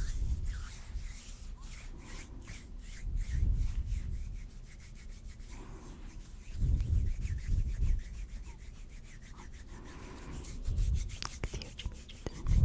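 Hands rubbing together close to the microphone. Heavy swells come every few seconds, with runs of quick, rapid rubbing strokes in between.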